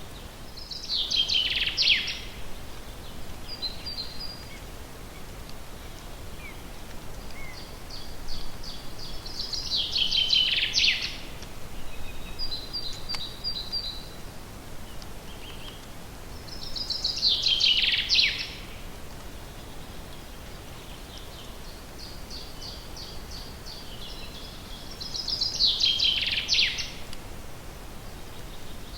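A songbird in a forest repeating the same short song four times, each a quick run of high notes that falls away at the end. Softer chirps come between the songs, over a faint steady hiss.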